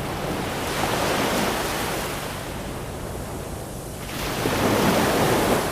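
A loud rushing noise, like surf, that swells about a second in and again near the end.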